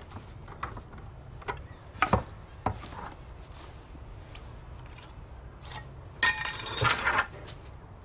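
Hand-held can opener cutting a tin can: a series of separate sharp metal clicks and clinks over the first three seconds. About six seconds in comes a denser clatter lasting about a second, the loudest part.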